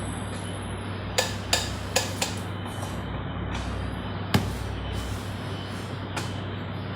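Kitchen clatter of bowls and utensils: a quick run of four sharp clinks and knocks, then a louder knock a few seconds later and a softer one near the end, over a steady low hum.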